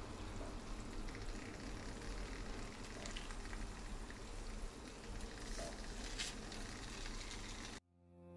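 Fried egg, hash browns and turkey rashers sizzling in a frying pan, a steady frying hiss with a few faint clicks. It cuts off suddenly near the end.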